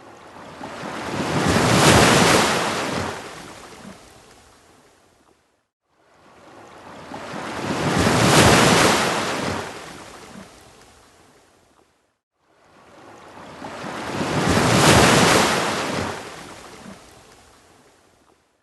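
Waves breaking on a beach, three in turn about six seconds apart: each builds to a rush of surf and fades away, with a brief hush between them.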